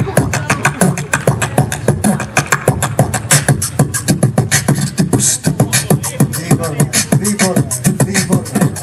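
Beatboxing into a microphone over a stage PA: a fast, unbroken run of vocal kick, snare and hi-hat clicks with some pitched vocal tones mixed in.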